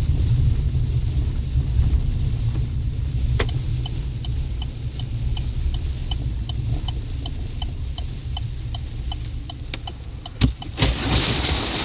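Low rumble of a pickup truck heard from inside the cab. About three seconds in a click sounds, and a light steady ticking starts at roughly three ticks a second. A sharp knock comes near the end, followed by a short rush of noise.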